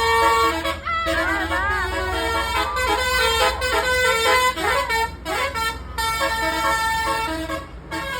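A bus basuri (telolet) horn playing a melody: several horn tones held and changed in quick steps, with some pitches sliding up and down, over a low steady hum.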